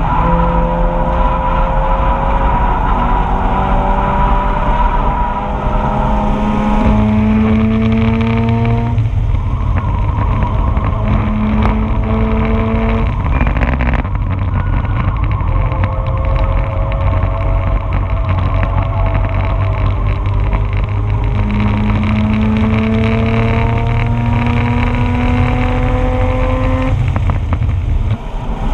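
2004 Mazda RX-8's two-rotor rotary engine at full throttle on track, its pitch climbing through the revs and dropping sharply at upshifts a few times, holding steadier for a stretch, then climbing again before backing off near the end. Heard from inside the cabin.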